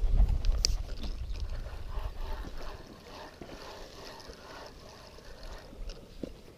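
A hooked rudd splashing at the surface as it is played in on a float rod. There is a sudden low rumble of rod handling as the strike is made, then splashing that fades off after about five seconds.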